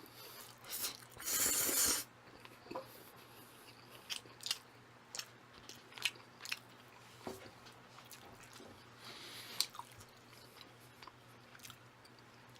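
Close-miked eating of thick jjajang instant noodles: a short noisy slurp of noodles about a second in, then soft chewing with scattered wet mouth clicks and smacks.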